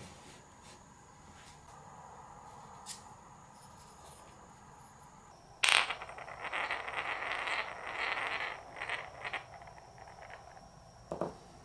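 A marble drops into a small wooden bowl held in the hands and rolls and rattles around inside it for about four seconds before settling. A short knock of wood follows near the end.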